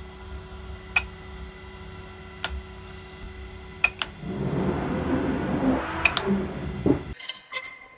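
A steady mechanical hum with a few sharp clicks, swelling into a louder rushing noise about four seconds in that cuts off abruptly near the end.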